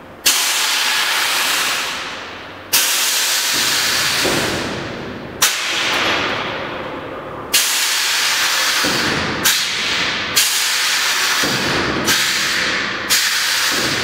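Air-bag suspension on a Toyota Hilux minitruck dumping air through its switch-operated valves as the truck lowers to the ground: about eight loud hisses, each starting suddenly with a click and fading over one to three seconds, coming closer together near the end.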